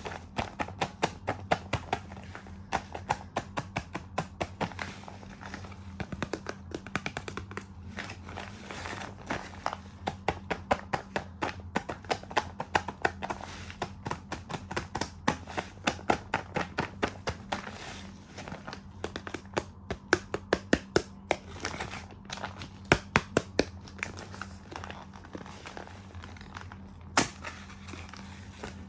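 Plastic animal toys and their packaging being handled, making rapid, sharp clicks and taps several times a second with some crinkling. A steady low hum runs underneath.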